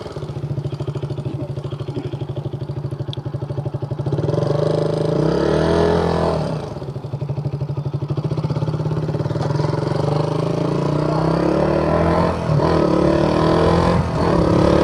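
KTM Duke 200's single-cylinder engine idling with an even pulse, then revving and pulling away. The pitch climbs through the gears, with short breaks at the gear changes near the end.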